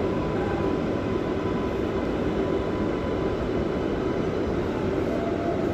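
Inside a New York City #7 subway car in motion: a steady rumble of wheels and running gear with a faint, even hum.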